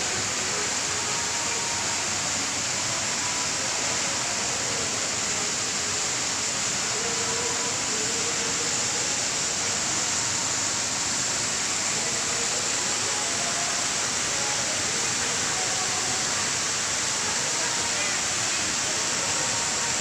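Steady rush of water from an artificial indoor waterfall splashing into a pond, with faint background chatter.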